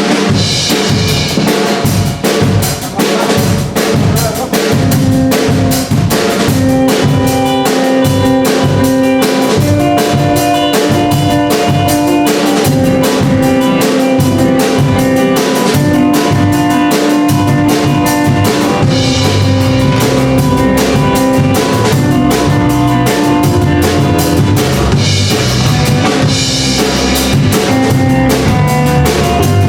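Music with a drum kit keeping a steady, busy beat of bass drum and snare, under sustained notes and chords that change every second or two.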